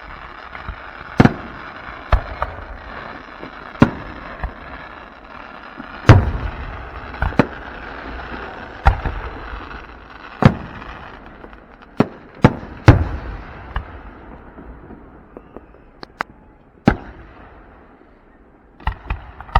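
Aerial fireworks bursting: about fifteen sharp bangs at irregular intervals, some close together, over a continuous rushing hiss that dies away near the end.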